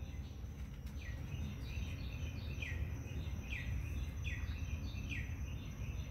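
Repeated short animal chirps, each falling in pitch, about two a second, over a steady low rumble of background noise.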